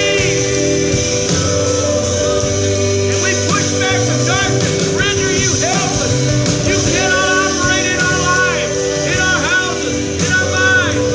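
Music with singing over sustained instruments, with guitar; the vocal line rises and falls in short phrases.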